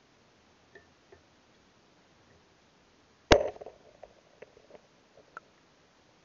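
Underwater action camera's waterproof housing knocking against riverbed gravel: one loud sharp knock about three seconds in, followed by several fainter clicks and taps.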